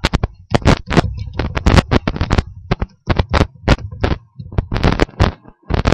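Typing on a computer keyboard close to the microphone: a quick, irregular run of key clicks, several a second, as an email address is entered.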